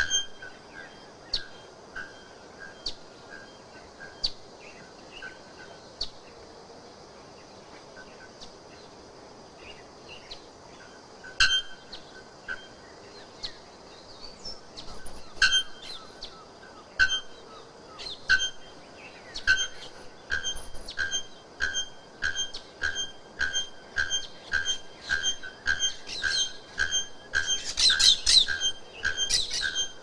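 Adult male bare-throated bellbird (araponga, the 'ferreiro' or blacksmith bird) calling: short, sharp metallic notes. They come scattered at first, then in a steady series of about one and a half a second through the second half, loudest near the end.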